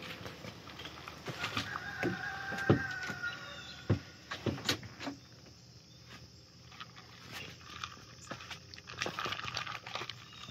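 A single drawn-out animal call lasting about two seconds, starting about a second in, among scattered clicks and knocks; a fainter call comes near the end.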